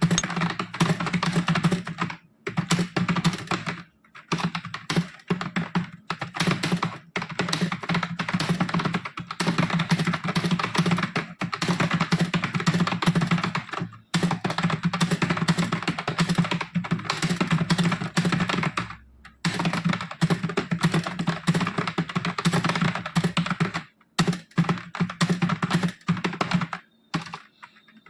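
Fast touch-typing on a computer keyboard: a rapid, continuous stream of keystrokes with a few brief pauses between bursts.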